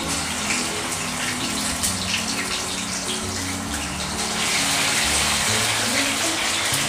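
Marinated chicken tikka skewers deep-frying in hot oil in a kadhai, the oil sizzling and bubbling steadily. The sizzle grows a little louder about four seconds in, as more skewers go into the oil.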